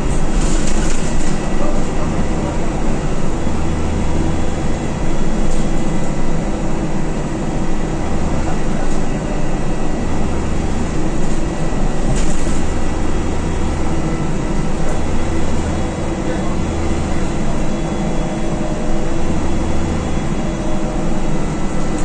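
Alexander Dennis Dart single-deck bus under way, heard from inside the cabin: its engine runs steadily under the road and tyre noise, with a low throb that swells and fades every second or two.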